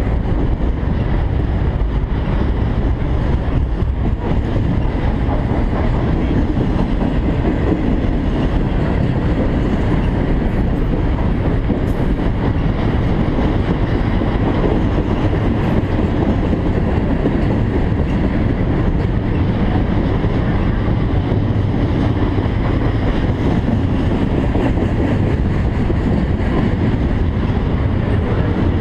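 A long CSX intermodal freight train rolling past at close range: steady rumble and clatter of the wheels on the rails, unchanged throughout.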